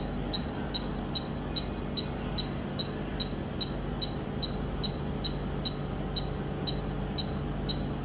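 Woodpecker Endo Radar apex locator beeping at an even rate of about two and a half short high beeps a second, tracking the file's approach to the root apex as the reading counts down.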